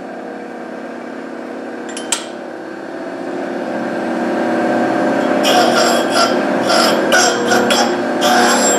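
A rod cap grinder's motor runs steadily, with a sharp click about two seconds in. From about three seconds the grinding wheel starts cutting the steel parting face of a factory GM connecting rod cap, building into uneven, scratchy grinding from about five and a half seconds.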